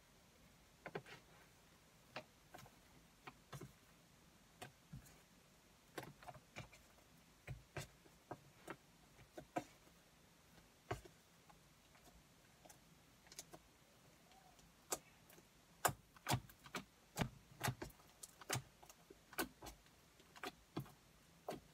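White slime being pressed, squished and pulled apart by hand, giving faint, irregular sharp clicks and pops. They come about one or two a second and grow louder and more frequent in the second half.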